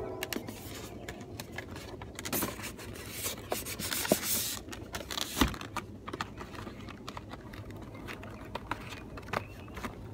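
Cardboard camera box being handled: scraping and rubbing as the inner box slides and the flap is folded shut, with a longer slide about four seconds in. A sharp knock follows about a second later, and there are light taps as the box is set down on the table.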